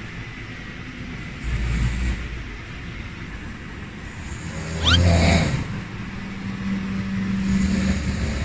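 A man snoring in his sleep: low snores a few seconds apart, the loudest about five seconds in with a short rising whistle, then a longer steady droning snore near the end.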